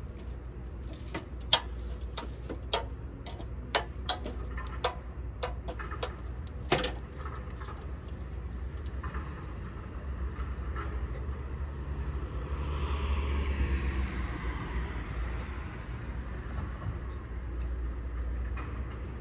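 About a dozen sharp clicks and knocks over the first seven seconds, over a steady low rumble. A vehicle passing, its rushing sound swelling and fading just past the middle.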